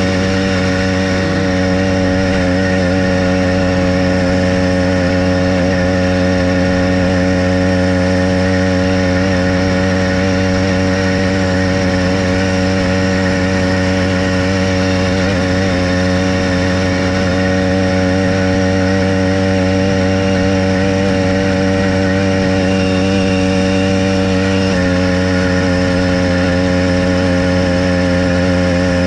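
Motorized bicycle's small engine running steadily at cruising speed, with an even pitch and a slight change in tone about 25 seconds in.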